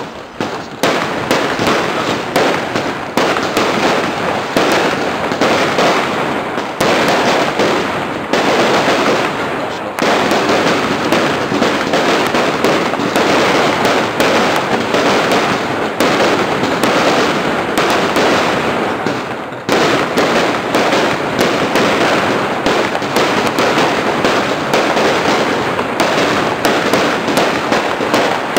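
Category 2 compound firework (Verbundfeuerwerk) firing: a dense, nearly unbroken stream of rapid shots and crackling bursts, with brief dips about ten and twenty seconds in.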